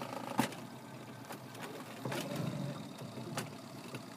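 Faint steady hum of a small electric motor, with a few sharp clicks scattered through it.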